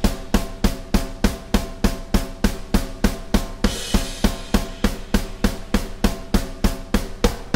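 Roland electronic drum kit played alone: a steady driving beat of kick, snare and cymbals, about four to five strokes a second, with a crash cymbal about four seconds in.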